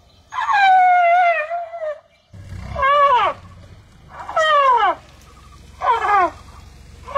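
Asian elephant squeaks: one long, high, wavering squeak, then four shorter squeaks that each fall sharply in pitch, about a second and a half apart.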